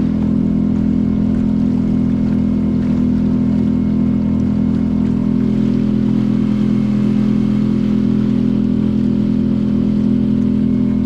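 A steady engine or motor hum with a strong low tone that holds the same pitch and loudness throughout.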